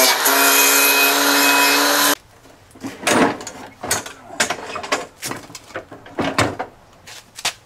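Angle grinder with a wire wheel whining as it scours loose paint and rust off a steel lawnmower deck, cutting off sharply about two seconds in. Then a run of knocks and clatters as the deck, wheels still on, is lifted and tipped up on its side on concrete.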